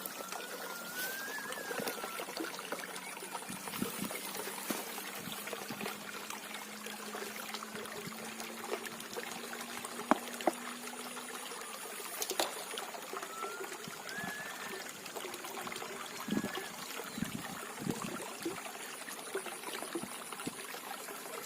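Water trickling and flowing steadily, with a few sharp clicks.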